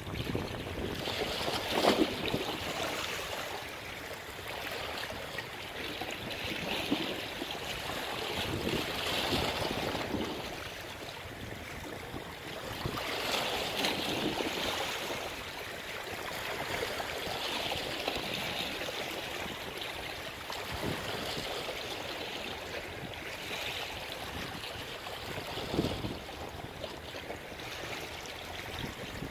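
Small sea waves washing and splashing against the shore, swelling and easing every few seconds.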